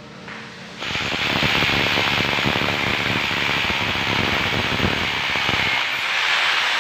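Corded hammer drill starting up about a second in and drilling steadily upward through the head of a UPVC frame into the ceiling, a loud, continuous rattling grind.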